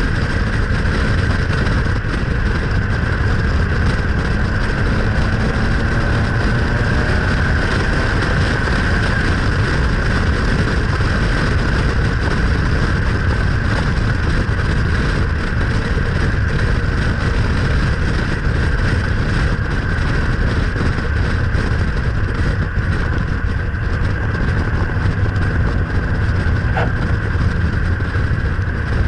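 Steady rush of wind and road noise on an action camera mounted outside a car driving at speed, with the car's engine faint beneath it.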